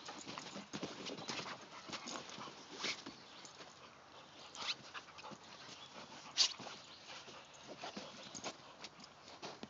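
A German Shepherd puppy and another dog play-wrestling: a run of short, irregular scuffles and mouthing sounds, the sharpest about six and a half seconds in.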